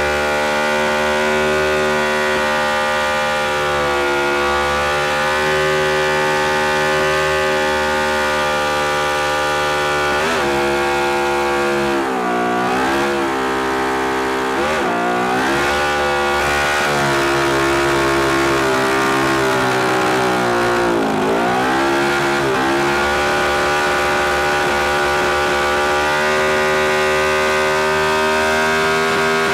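Motorcycle engine held at high revs during a burnout, its rear tire spinning and smoking on the pavement. The revs dip and climb back several times in the middle, then hold steady.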